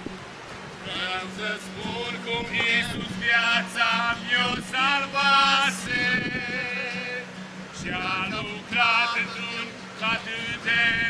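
Music with a man singing, the voice wavering and breaking into short phrases over a steady low drone.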